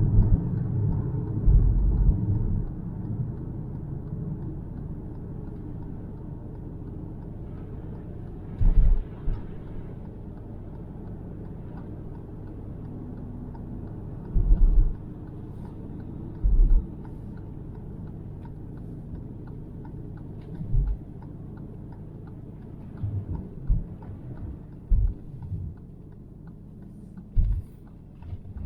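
Car road noise heard from inside the cabin while driving on a snowy road: a steady low rumble of engine and tyres that quietens over the first few seconds, with short low thumps now and then.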